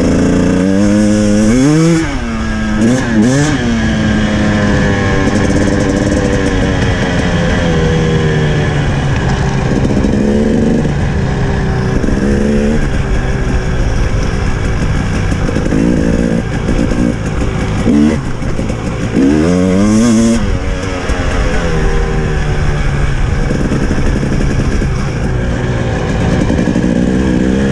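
KTM 300 TPI two-stroke single-cylinder dirt bike engine riding off road. The revs climb and drop sharply several times as the throttle is worked: about two seconds in, around ten seconds and around twenty seconds, with steadier running between.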